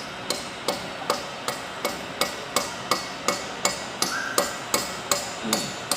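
A hammer striking metal in a steady rhythm: about sixteen blows, roughly three a second, each ringing briefly.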